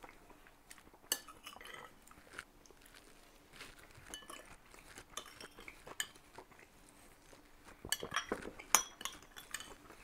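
Metal spoon clinking and scraping against a porcelain soup bowl as a man eats cold beet soup, in scattered light taps. A run of sharper clinks comes near the end.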